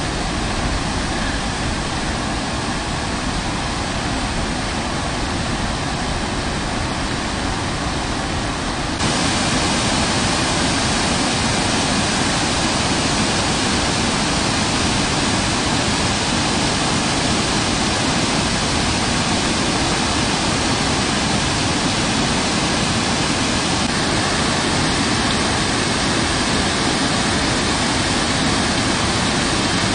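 Swollen floodwater in a rain-fed canal rushing and pouring over a bridge's vents like a waterfall, a steady heavy rush. It gets abruptly louder and brighter about nine seconds in.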